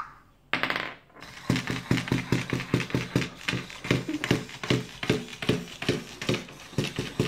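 Little Live Pets robot puppy toy walking on a wooden tabletop: its small motor runs with a fast, even tapping of its feet, starting about a second and a half in.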